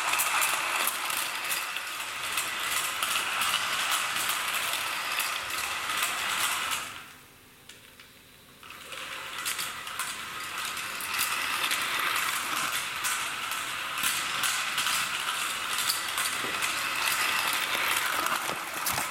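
Meths-fired Mamod SL1 live-steam toy locomotive running on its track, a fast continuous clicking and rattling of its small engine and wheels. It drops away to faint for about two seconds about seven seconds in, then comes back.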